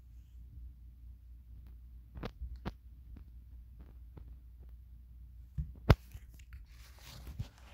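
Phone microphone handling noise: a steady low hum with two soft taps about two seconds in, then a sharp knock just before six seconds as fingers press on the phone, followed by rubbing and fumbling near the end.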